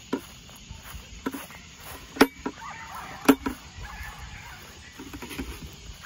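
Walking footsteps in grass with sharp knocks about once a second, the loudest two a little past the middle, over faint hen clucking.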